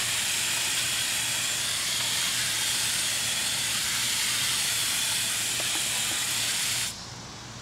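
Water spraying steadily from a hose watering wand's shower head onto soil, cutting off suddenly near the end.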